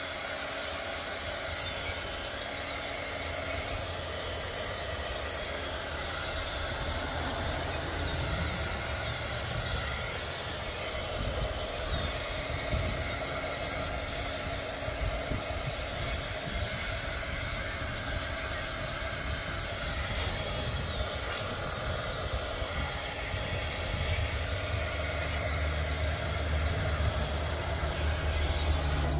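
Handheld craft heat gun running steadily, its fan blowing hot air onto a synthetic fabric flower. A low rumble builds in over the last few seconds.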